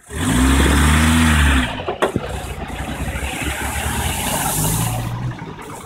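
An engine revs loudly for over a second. After a sharp click about two seconds in, an old military-style off-road vehicle drives through a shallow river ford with its engine running, its wheels throwing up splashing water, loudest just before the end.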